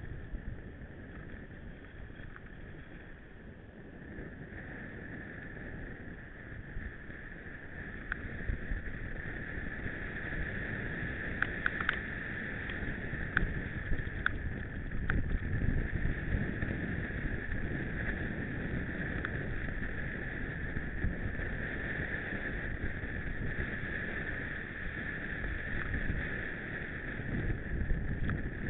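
Mountain bike riding over a dirt track: a steady rumble of tyres and wind on the microphone, with a run of sharp rattling clicks about halfway through.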